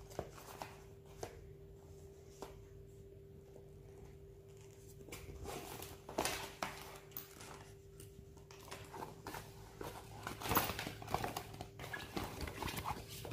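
Handling noise from a Tommy Hilfiger fabric crossbody bag being turned over and opened: rustling fabric and small clicks of its metal buckles and zip, sparse at first and busier and louder from about halfway through. A faint steady hum lies under it.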